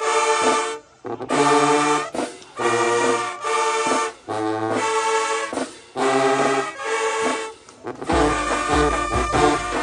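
High school marching band brass playing held chords in short phrases with brief breaks, low brass sustaining bass notes under some of them. About eight seconds in the sound becomes fuller and heavier in the bass.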